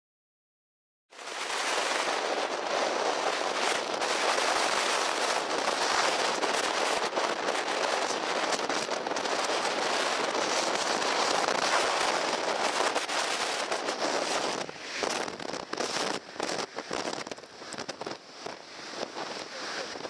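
Typhoon Jebi's storm winds and driving rain battering an outdoor camera's microphone: a dense, crackling rush that starts suddenly about a second in. After about 15 seconds it turns gusty, dropping and surging.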